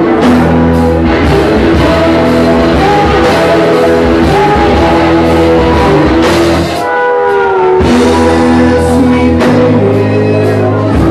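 Live rock band playing with electric guitars, bass guitar and drums, loud in a club room. About seven seconds in the bass drops out for about a second while a sliding note is played.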